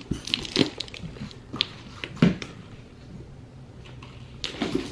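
Cardboard box flaps being pulled open and handled: a few short cardboard knocks and scrapes in the first couple of seconds, a quieter stretch, then a few more near the end.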